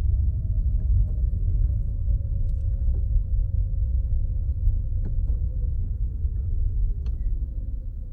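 Car cabin rumble from a car being driven: a steady low road-and-engine drone with a faint whine that slowly falls in pitch and a few light clicks.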